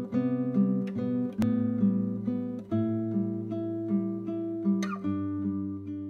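Instrumental intro music: an acoustic guitar picking a melody of single notes over sustained low notes.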